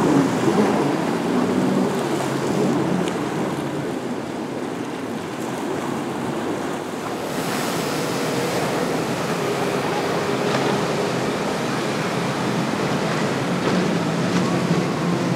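Waves surging and breaking in a rough ocean inlet, with wind buffeting the microphone and the faint drone of boat engines underneath.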